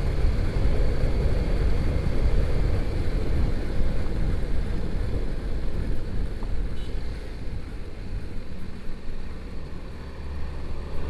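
Motorcycle riding at speed: a rough rumble of wind buffeting the helmet microphone over the engine and road noise. It eases slightly near the end, where a steady low hum comes in.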